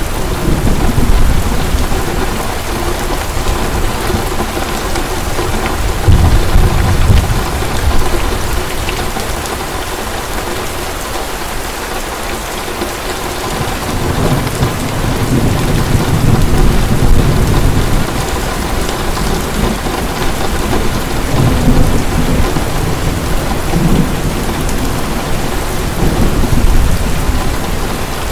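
Heavy rain falling steadily in a thunderstorm, with rolls of low thunder rumbling several times.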